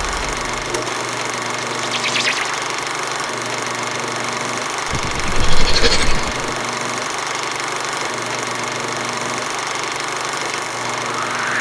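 Electronic sound effects for a logo animation: a steady, machine-like buzzing drone, with a loud burst about halfway through and a rising sweep starting near the end.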